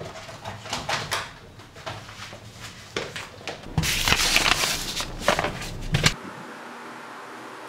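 Things being gathered up off a desk: coated wire clothes hangers clicking and clattering, then a dense rustle of papers being handled, which stops abruptly about six seconds in, leaving low room tone.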